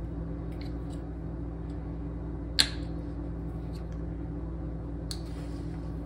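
Small clicks as a flow-regulator insert is pressed into an Eemax inline flow-regulator fitting by hand, with one sharp snap about two and a half seconds in and another click near the end, over a steady low hum.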